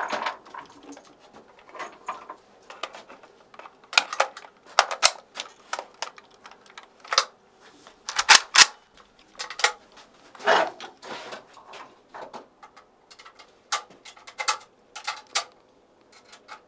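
Scattered sharp clicks and metallic clacks of an AK-47 rifle being handled and readied to fire, coming irregularly with the loudest pair of clacks about eight seconds in.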